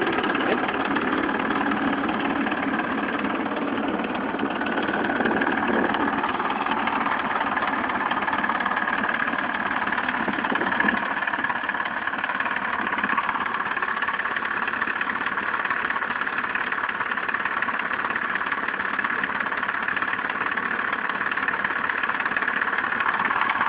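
Small model airplane motor running steadily, a continuous whine that wavers slightly in pitch.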